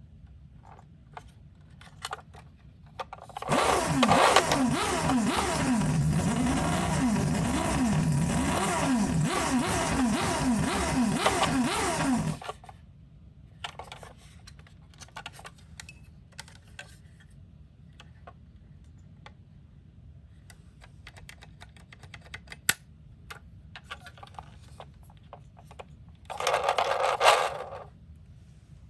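Toy ambulance minicar's electronic siren wailing through its small speaker for about nine seconds, its pitch sweeping up and down over and over. Small plastic clicks and taps follow, with a second short loud burst near the end.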